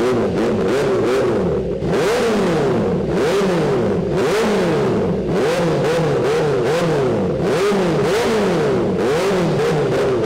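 Kawasaki ZX-10R inline-four sport bike with an aftermarket headerback exhaust, revved in a quick run of about a dozen throttle blips, each rising and falling. The revs are kept moderate, below about 6,000 rpm, and at that gentle throttle it is not especially loud.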